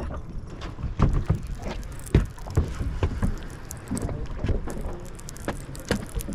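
Fishing boat at sea: a steady low rumble with irregular knocks and slaps, several a second.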